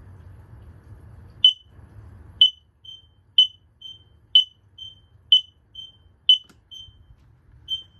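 X-Sense interconnected smoke alarms sounding short, high-pitched beeps about once a second, starting about a second and a half in. Fainter beeps from another alarm in the house fall between the loud ones.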